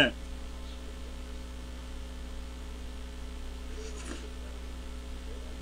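Steady electrical mains hum on a boosted microphone line, with a faint bite into a hamburger about four seconds in.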